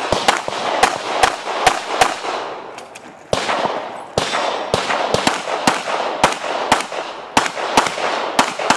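Springfield XDm 5.25 9mm pistol firing during a USPSA stage. A fast string of shots is followed by a pause of about a second, then a steadier run of shots about two a second, each with a short echo.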